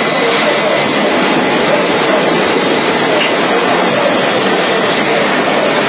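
A steady, even rushing noise with no distinct events, with faint voices at times underneath it.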